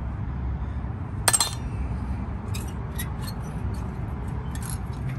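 Light metallic clinks and ticks of a steel-backed brake pad knocking against the Honda Accord's front caliper bracket and its pad clips as it is handled and slid into place, with one sharper clink about a second in. A low steady hum sits underneath.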